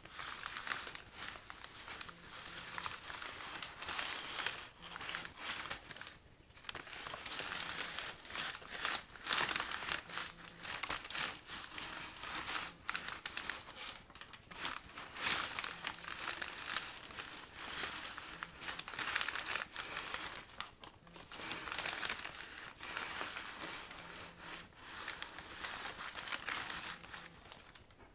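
Brown paper bags rustling and crinkling as they slide along, an irregular crackle that runs on with small swells and dips.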